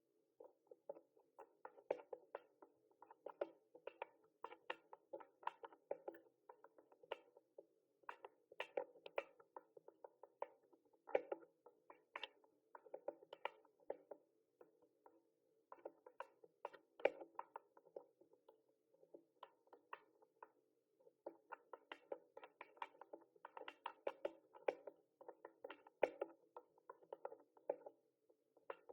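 Typing on a mechanical keyboard: quick, irregular key clicks, several a second, in runs with brief pauses between them.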